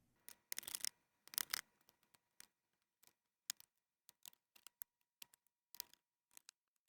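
Small tools and fingers working inside an open MacBook Pro: a couple of brief scrapes, then scattered small clicks and ticks as parts and connectors are handled.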